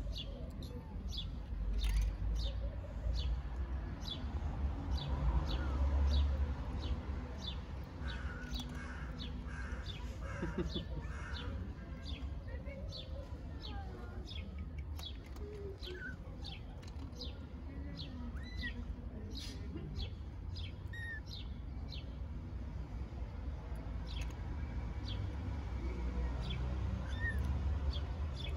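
Small birds chirping over and over, short high chirps about once or twice a second, over a steady low rumble.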